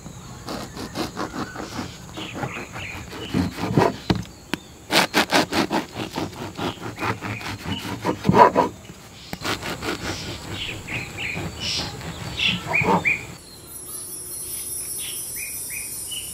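A knife sawing through a fresh loaf of bread on a wooden board, in quick rasping strokes that come fastest in a run about five seconds in. Birds chirp in the background.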